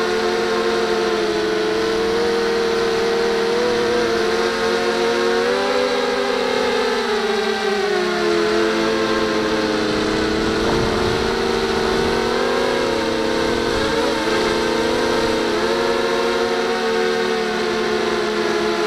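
Six brushless motors and propellers of a small 250 mm Y6 multirotor whining in flight, the pitch sliding up and down as the throttle changes.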